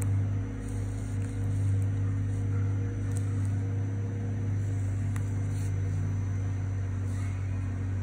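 A steady low hum, with a few light clicks as a metal pick works at the plastic housing and rubber boot of a Harley-Davidson wiring connector.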